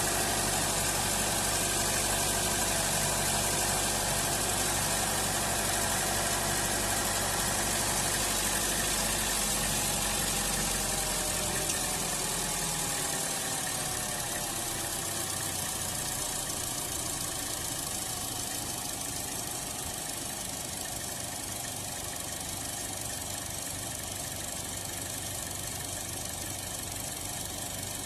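2016 Buick Encore's 1.4-litre turbocharged four-cylinder idling rough, from a vacuum leak at the crankcase vent valve disc on top of the valve cover. About halfway in, the deep drone fades and the engine runs a little quieter.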